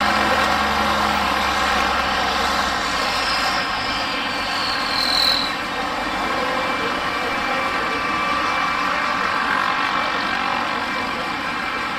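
Ford 8240 tractor's diesel engine working hard under load as it pulls, a steady dense engine note, with a high whistle gliding down in pitch about four to five seconds in.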